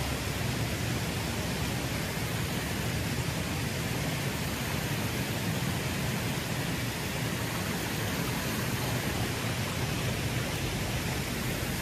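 Steady, even rushing hiss at a constant level, with no distinct events.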